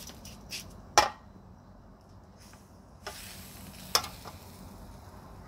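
Cooking utensil stirring and knocking in a pan, with a few sharp clinks, the loudest about a second in and another just before four seconds, and a brief hiss of frying between three and four seconds.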